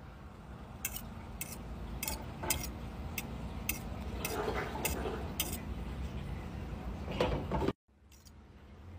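A metal fork clinking against a ceramic bowl while stirring cubes of mushroom through beaten egg, with sharp irregular clinks about every half second to a second.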